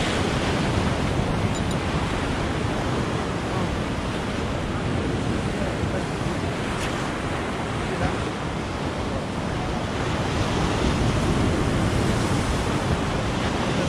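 Sea surf washing and breaking against a rocky shoreline in a steady rush, with wind buffeting the microphone.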